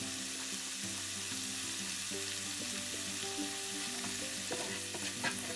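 Sweetcorn, garlic and ginger frying in a pan with a steady sizzle, and a few light clicks of a utensil near the end. Soft background music with held notes plays underneath.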